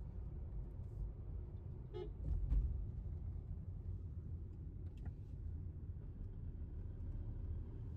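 Car driving along a road, heard from inside the cabin: a steady low rumble of engine and tyres, with a short pitched toot about two seconds in.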